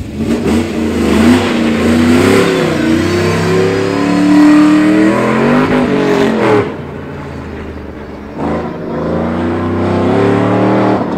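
Lowered Chevrolet Cheyenne pickup's engine launching hard off the start and revving up and down as it is driven through a coned course, its pitch rising and falling with each shift and corner. It eases off about two-thirds of the way through, then builds again near the end.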